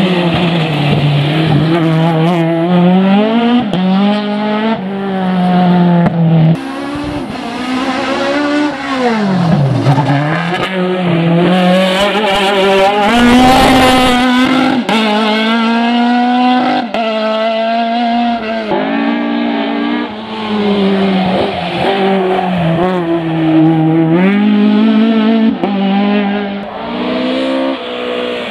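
Ford Escort Mk2's naturally aspirated Millington four-cylinder racing engine driven hard at full throttle. The revs climb repeatedly and drop sharply at each gear change, and about ten seconds in they fall low and build up again.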